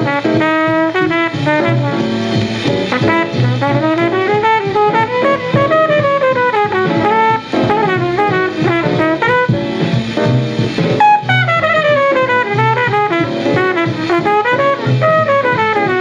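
A 1947 bebop quintet recording played from a 78 rpm shellac disc. A horn plays quick runs that climb and fall over piano, bass and drums.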